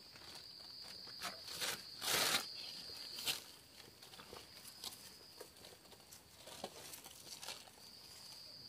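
Plastic bag rustling and crinkling with scuffs and snaps in dry leaf litter as mushrooms are picked by hand, the loudest rustle about two seconds in. A steady high-pitched insect drone runs behind, dropping out for a couple of seconds after the middle.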